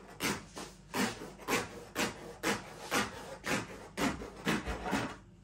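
A piece of card-scraper blade scraping short strokes along a panel edge, about two a second, shaving the overhanging edge banding flush.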